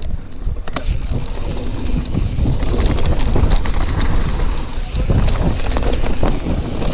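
Wind buffeting the camera microphone over the rumble of mountain-bike tyres rolling fast down a dirt trail, with scattered clicks and knocks from the bike over bumps.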